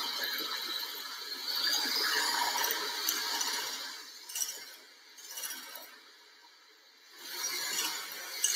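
Electric hand mixer running with its beaters in heavy cream in a stainless steel bowl, whipping it nearly to stiff peaks. The sound eases off for a couple of seconds past the middle and picks up again near the end.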